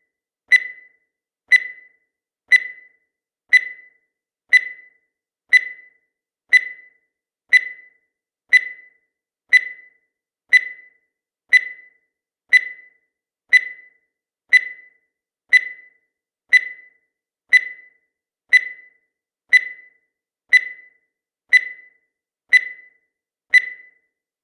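Countdown timer sound effect: a short, high-pitched tick-like beep once every second, each one dying away quickly, about two dozen in steady succession.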